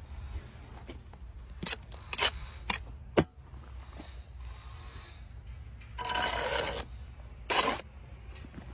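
Work sounds of building work: four short scrapes and knocks in the first few seconds, the last the sharpest. A longer scrape follows about six seconds in, then a shorter one, over a low steady rumble.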